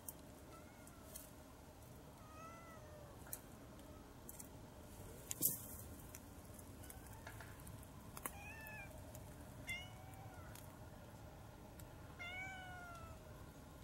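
A domestic cat meowing repeatedly: about eight short calls, each rising and falling in pitch, spaced a second or two apart. A single sharp knock about five and a half seconds in is the loudest sound.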